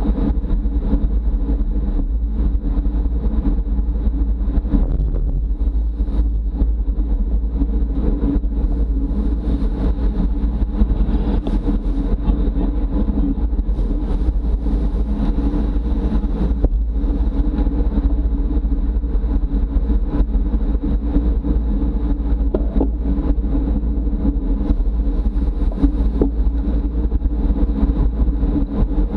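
Steady wind noise and road rumble at speed, heard on a camera riding on a road bicycle.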